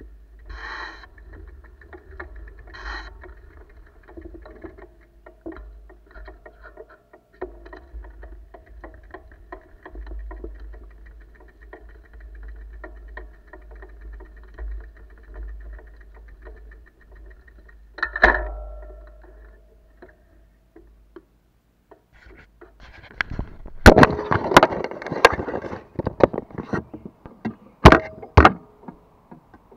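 A bicycle rolling over a wooden plank bridge deck, a faint low rumble with light ticking, and one sharper knock about two-thirds of the way in. In the last several seconds, loud knocks and rubbing from fingers handling the camera.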